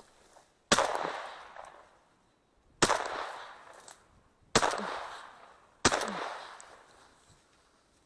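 Four shotgun shots fired over about five seconds, each followed by a decaying echo lasting about a second. The gap between shots shrinks toward the last two.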